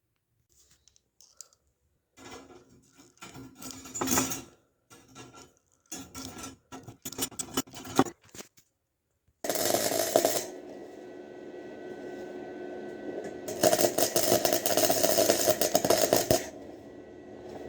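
Metal pieces and hand tools clinking and scraping, then a small electric power tool starts about halfway through and runs steadily. Twice it turns louder and harsher as it bites into the metal of a fan grille being fabricated.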